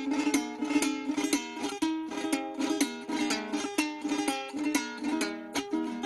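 A Venezuelan cuatro played solo: a vals caraqueño picked out in a quick run of plucked notes and chords.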